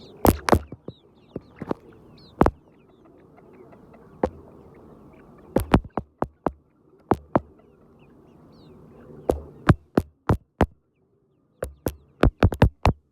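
Chickens: faint cheeping and clucking under a scatter of irregular sharp taps and knocks, about a dozen, with a short quiet gap near the end.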